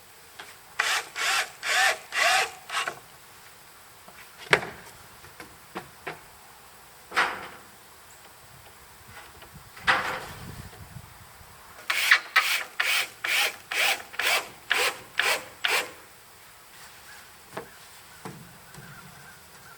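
Hand saw cutting wood in two runs of back-and-forth strokes, about two a second, with a few single knocks between the runs.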